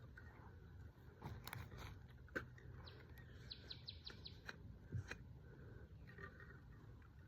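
Faint outdoor ambience with a bird singing a quick run of about six short falling notes near the middle, and a few faint scattered clicks.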